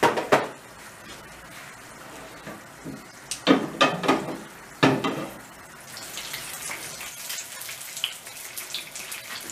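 Butter and oil sizzling in a hot frying pan as the butter melts, the fine crackle growing denser in the second half. A few brief, louder sounds break in at the very start and around the middle.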